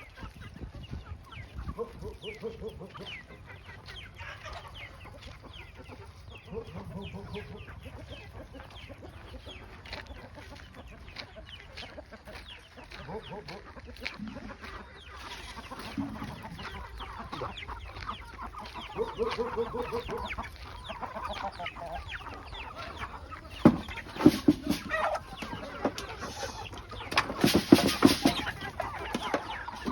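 A flock of chickens clucking while they feed, with many small clicks and taps among the calls. There are louder outbursts about 24 seconds in and again around 27 to 28 seconds.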